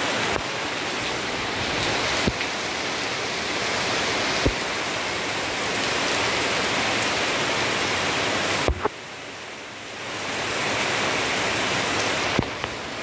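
Heavy rain pouring down, a dense steady hiss. A few sharp knocks stand out, and the hiss drops away briefly about nine seconds in before building back up.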